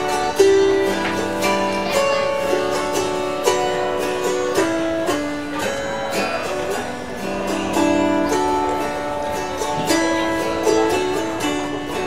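Autoharp played solo, its plucked strings picking out a melody with notes left ringing over one another.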